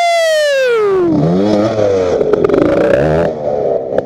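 Motocross dirt bike engine revving hard: the pitch falls steadily over the first second, then climbs and drops again in two shorter revs before easing off near the end.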